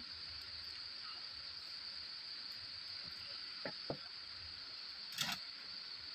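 Steady high-pitched cricket trill in the background, with a few light clicks as the wire-frame circuit and soldering iron are handled, the sharpest about five seconds in.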